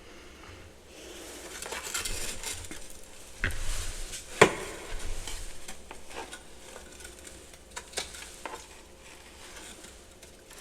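Freezer frost and ice being crunched and scraped: irregular crackling scrapes with scattered sharp clicks, the loudest a sharp clink about four and a half seconds in.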